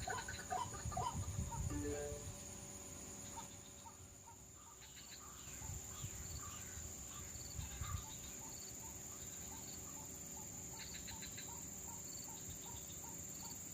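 White-breasted waterhen calls: short clucking notes repeated about twice a second. A steady high buzz of insects runs underneath.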